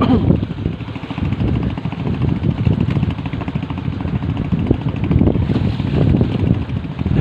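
A boat engine running steadily, with wind buffeting the microphone.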